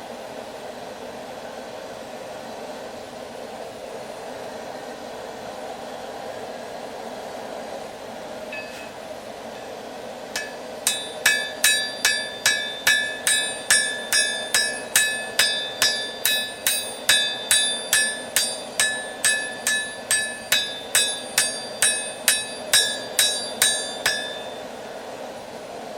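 Hammer striking a steel railroad spike on an anvil, forging it into a knife. About thirty blows fall at roughly two a second, starting about ten seconds in and lasting some fourteen seconds, each with a clear metallic ring. A steady rushing noise runs underneath.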